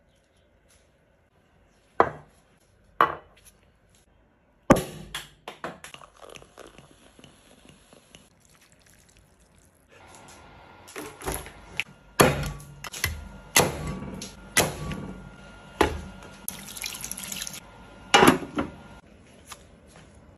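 Kitchen food-preparation sounds: liquid dripping and pouring into a bowl, with two sharp clicks early and then a run of knocks and taps that comes thicker in the second half.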